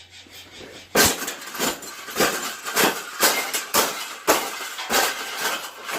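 Metal wire pet cage clanking and rattling under repeated knocks, about two sharp metallic hits a second, starting about a second in, as it is forced or worked apart. A faint low hum comes before the first hit.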